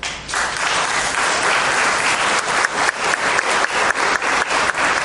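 Audience applauding: many hands clapping, starting suddenly and holding steady.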